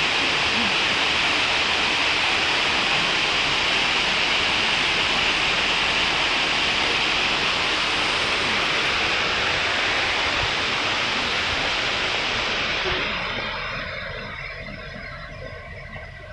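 Waterfall: a steady rush of falling water that fades away over the last few seconds.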